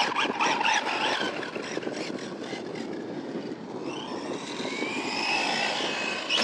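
Brushless electric motor of a Team Corally Syncro 2WD RC buggy whining as the throttle is worked, its pitch rising and falling, over a steady rushing noise.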